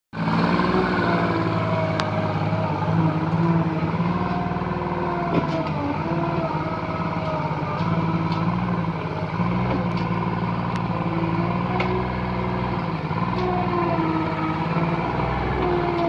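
Compact skid steer loader's engine running steadily while the machine drives and works its bucket in dirt, its pitch dipping and recovering several times as the load changes. A few sharp clicks sound over it.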